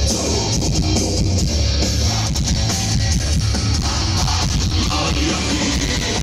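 Live heavy metal concert: a band playing loud with electric guitars and a drum kit, a dense, continuous sound with a heavy low end.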